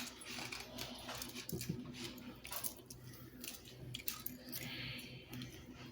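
Scattered light clicks and small rattles of kitchen items being handled while cupcakes are decorated, over a steady low hum.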